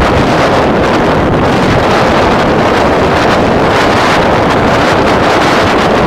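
Loud, steady wind buffeting the microphone aboard a moving ferry, a constant rushing noise with no break.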